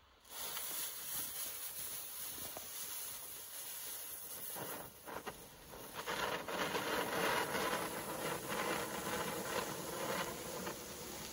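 Comet Geisterschreck mini-volcano firework fountain (category F1) burning: a steady hiss as it sprays flame and sparks, growing louder with crackling from about six seconds in.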